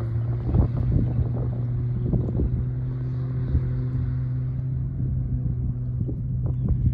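Supercharged Sea-Doo RXP 215 jet ski with its muffler deleted, running at speed across open water and heard from a distance as a steady engine drone. Wind buffets the microphone throughout.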